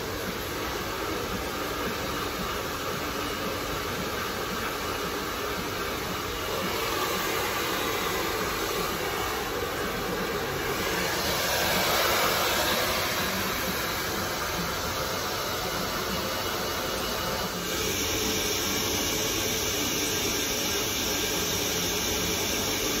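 Hand-held hair dryer blowing as a hairdresser blow-dries wet hair: a steady rush of air that grows louder for a few seconds around the middle and shifts in tone about three-quarters of the way through.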